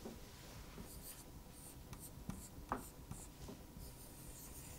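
Whiteboard marker drawing on a whiteboard: a series of short, faint, high scratchy strokes.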